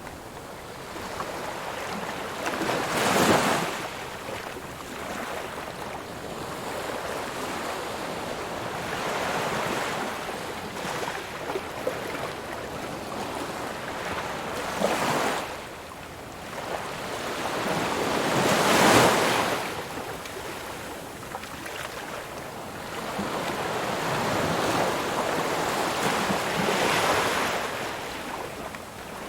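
Ocean waves breaking on a shore: a steady wash of surf with several louder waves cresting and crashing, the strongest about 3 seconds in and again about two-thirds through, with another rise near the end.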